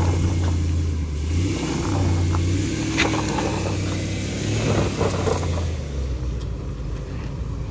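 A vehicle engine running, its revs swelling and dropping back three times, with a sharp click about three seconds in.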